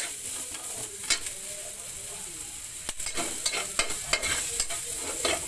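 A metal spatula scraping and knocking irregularly against an aluminium wok as ginger, garlic and onion sauté in a little oil, over a steady sizzle.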